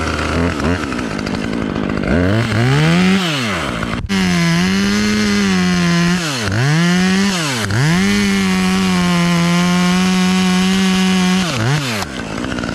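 Chainsaw running at high revs through a cut. It eases off the throttle and revs back up several times, and it shuts off near the end.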